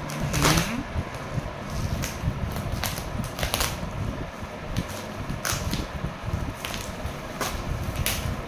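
Bubble wrap and plastic film being handled and pulled open, rustling and crinkling with sharp crackles at irregular intervals, about one a second, over a steady low background noise.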